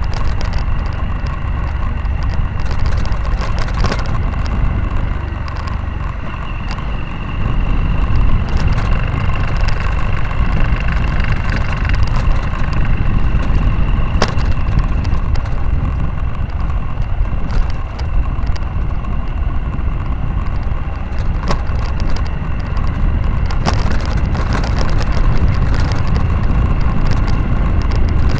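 Motorcycle engine running steadily while riding on a rough dirt road, with heavy wind rumble on the microphone and scattered clicks and knocks. It gets somewhat louder about seven seconds in.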